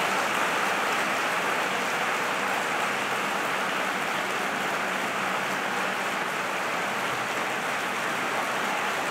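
A large audience applauding, a dense, even clapping that holds steady throughout.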